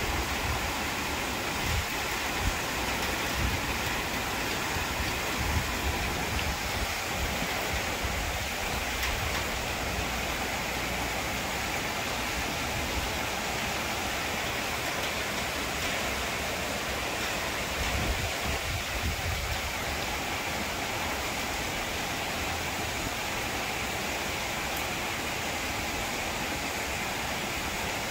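Steady rain falling on leafy trees and corrugated metal roofing, an even hiss. A few low rumbles come and go in the first third and again around two-thirds through.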